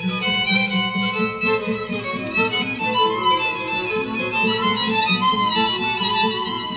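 String quartet of two violins, viola and cello playing a continuous passage in the style of Azerbaijani mugham, with the violin to the fore over busy moving lower parts.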